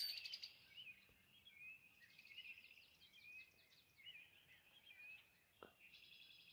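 Faint birdsong from several birds: short whistled notes and quick chirping trills overlapping, a little louder at the very start.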